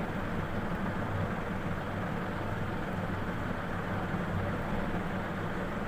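Steady background noise: a constant low hum with a hiss over it, unchanging throughout.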